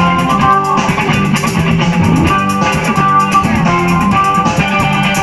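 Live band playing through a stage PA: an electric guitar lead of held notes over drum kit, other guitar and keyboard.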